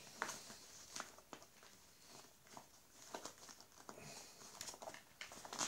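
Faint rustling and scattered light clicks of a small fabric pouch and its contents being handled.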